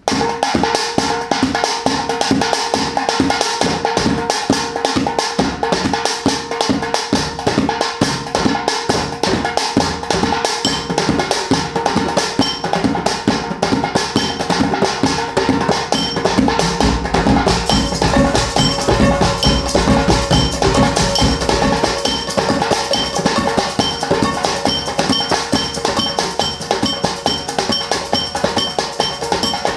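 Kitchen-utensil percussion groove played by hand: fast, steady hits on plastic tubs, steel plates, a lid, a large plastic water jug and a bottle, with a pitched backing layered underneath. A deep bass part comes in about sixteen seconds in and drops out again a few seconds later.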